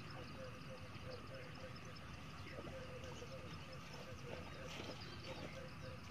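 Faint, steady chorus of calling animals: a low note pulsing about four or five times a second over a continuous high chirring.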